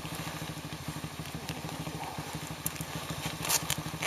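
Small single-cylinder motorcycle engine idling steadily, with a few light clicks over it.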